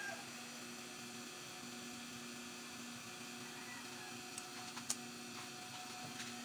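Metal lathe running with a steady hum. A few sharp ticks come about four and a half to five seconds in, with a fainter one near the end.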